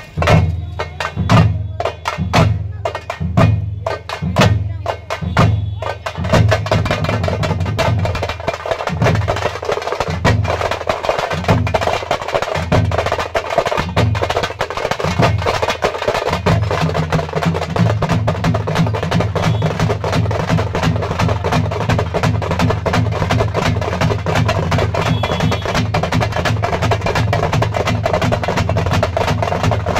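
Street procession drum troupe beating large double-headed drums and smaller drums with sticks. It starts with slow, spaced strokes, then about six seconds in breaks into a fast, dense rhythm that keeps going.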